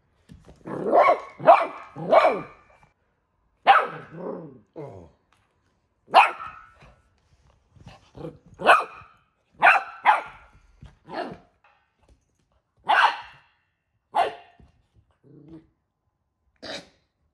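Golden retriever puppy barking at a halved lemon: about a dozen short barks, three in quick succession at the start, then single barks every second or two.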